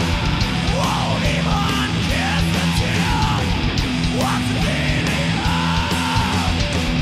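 Live rock band playing loud, heavy music: electric guitar and drum kit, with frequent cymbal hits and notes that slide up and down.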